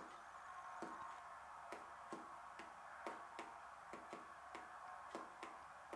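A pen tapping keys on the touchscreen of an Echo 200 communication device: faint, short clicks, about two a second and unevenly spaced, over a low hiss.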